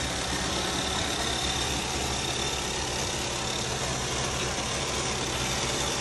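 Robot vacuum cleaners running on a hard floor: a steady whir of suction motors and brushes with a faint high whine.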